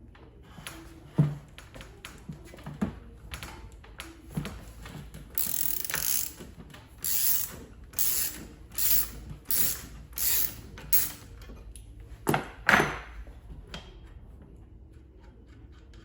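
A 19mm socket ratchet being worked back and forth to undo a wheelchair's rear wheel nut, rasping in about seven regular strokes. A few knocks come before the strokes, and two louder clunks follow near the end.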